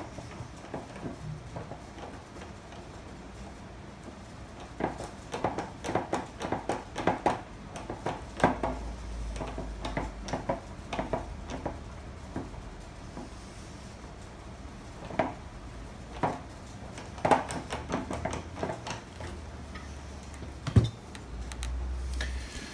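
Small metal tools clicking and scraping against the parts of a bubblegum machine lock, in irregular clusters of light metallic clicks with one sharper click near the end, while working the lock's stiff spring.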